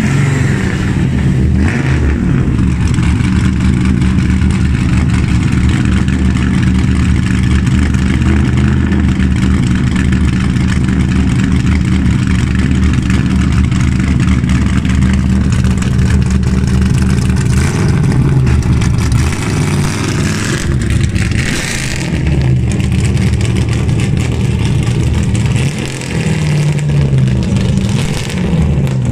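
The 7.0-litre LS7 V8 of the HGK F22 Eurofighter, a BMW M2-bodied car, running at low revs as the car creeps along, steady throughout. Its pitch rises and falls briefly about three seconds from the end.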